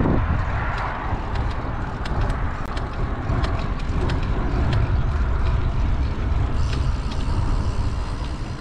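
Wind rumbling on the microphone and tyre noise from a bicycle being ridden along a road, with scattered faint ticks.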